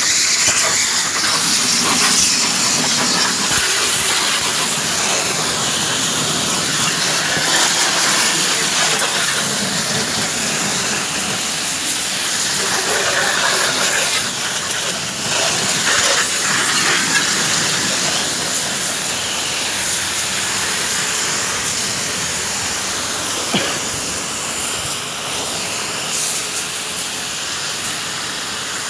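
Loud, steady hiss.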